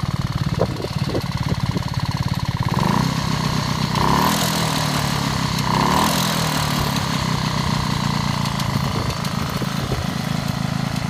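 A 1937 Puch 200 motorcycle's two-stroke engine idling, with the throttle blipped in three short revs at about three, four and six seconds in before it settles back to idle.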